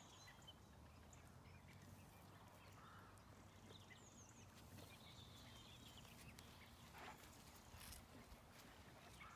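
Near silence: faint outdoor field ambience with a few faint high chirps and a couple of soft clicks about two-thirds of the way through.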